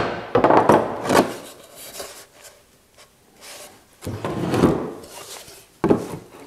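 A wooden mallet knocks once on an old chair's wooden seat. Wooden seat pieces then scrape and rub against each other and the workbench as they are worked apart along a failed glue joint. A sharp wooden knock comes near the end.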